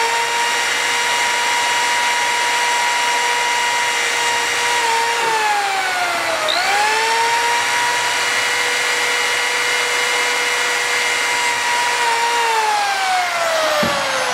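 Corded electric drill boring rivet holes through a metal strap: a steady motor whine that sags in pitch for a second or so about five seconds in, spins back up, runs steady again, and winds down with a falling pitch near the end.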